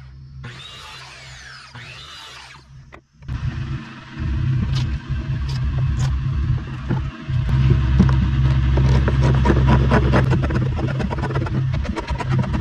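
A vehicle's engine running loudly with a dense low rumble and rattle, starting abruptly about three seconds in after a quieter stretch with a steady low hum.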